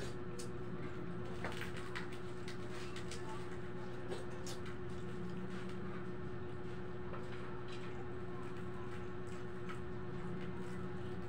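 Steady hum of a wall-mounted electric fan, with scattered small clicks and taps of people eating with their hands from a bowl and plates.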